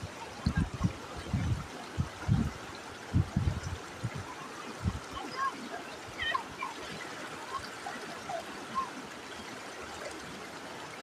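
Waterfall: a steady rush of falling water. Irregular low thumps come through it in the first half, and a few short high chirps sound around the middle.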